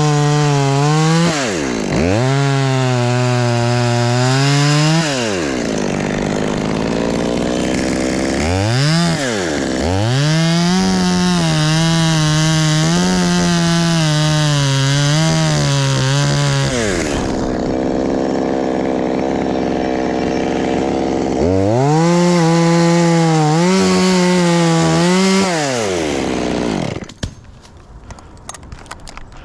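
Two-stroke chainsaw revved up and down, held at high revs with the pitch wavering as it cuts. It drops back to a lower, quieter running speed midway, revs up again, and falls quiet near the end.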